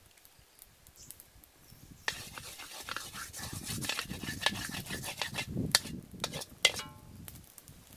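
Wooden spoon stirring and scraping liquid in a metal wok, starting about two seconds in, with a few sharp knocks of the spoon against the pan.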